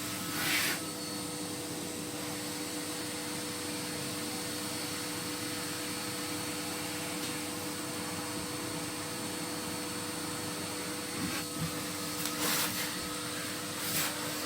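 Vacuum cleaner running steadily, a constant motor hum with a steady whine, with a few short knocks and scrapes near the end.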